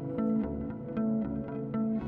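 Background music: quick repeating notes over a low bass note that repeats evenly.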